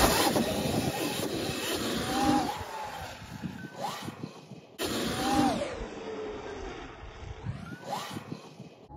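Electric dirt bike's motor whining, its pitch rising and falling as the throttle is worked, over rushing wind noise. The sound cuts off abruptly about halfway through, as a new clip starts.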